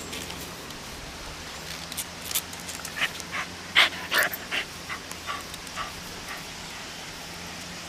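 Shiba Inu panting right at the microphone: a run of short breaths, about three a second, loudest near the middle of the run.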